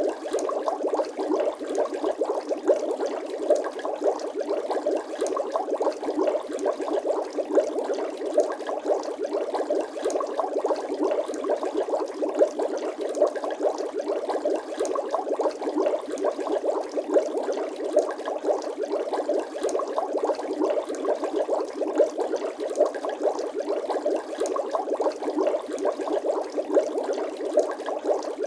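Bubbling water sound effect: a steady, dense stream of small bubbles gurgling and popping in rapid succession.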